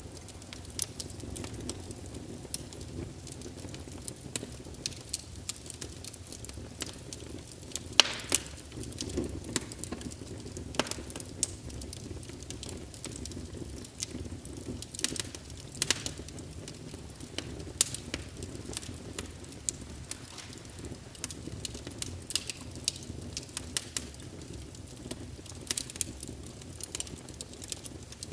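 Wood fire burning with a steady low rumble of flame and constant crackling, snapping pops, a few of them sharper and louder than the rest.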